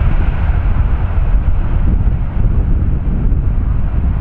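Steady, loud jet-engine rumble from a departing Boeing 747-8, with wind buffeting the microphone.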